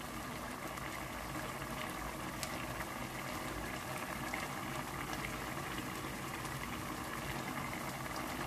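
A pot of pork and pig intestines boiling on the stove, a steady, even sound.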